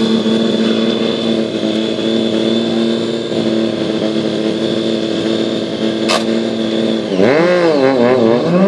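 Sport motorcycle engine held at a steady high rev for about seven seconds, then revved up and down in quick waves near the end. A single sharp click about six seconds in.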